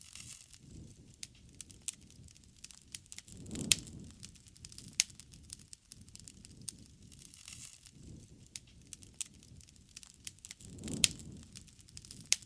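Wood campfire crackling, with many sharp snaps and pops over a low rush of burning. A few louder pops stand out, about four seconds in and again near the end, each with a brief swell of low rushing flame.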